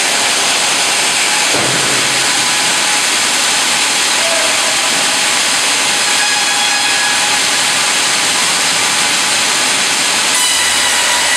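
Fimaksan hydraulic vertical band saw and automatic log carriage running: a loud, steady hiss-like machine noise. About ten seconds in, a low hum and higher steady tones begin as the carriage brings the log up to the blade.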